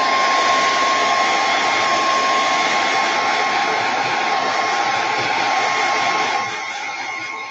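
Handheld blow dryer running steadily, a steady whine over rushing air, drying fresh craft paint. It gets a little quieter about six seconds in.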